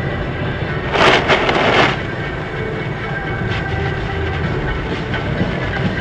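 Steady road and engine rumble inside a car on a slushy highway. About a second in there is a loud rush and spatter lasting about a second, as an oncoming truck passes and throws slush across the windshield.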